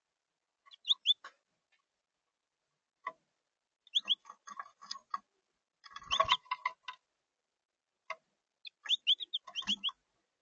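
Finches chirping in quick runs of two to four short falling notes. Scattered sharp ticking clicks come between the runs, with a low thump about six seconds in and another near the end.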